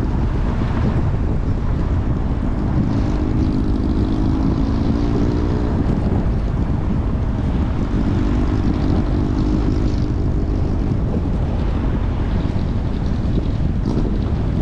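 Car driving along a road: steady low rumble of tyre, engine and wind noise, with a droning tone that swells twice.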